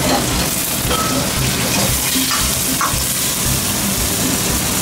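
Crab curry sauce sizzling in a hot pan as it is stirred, just after coconut milk and milk have gone in, with a few light clicks of the utensil.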